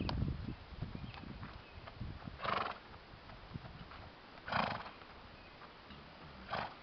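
American Saddlebred horse under saddle snorting out through its nostrils three times, about two seconds apart, with faint hoofbeats on dirt.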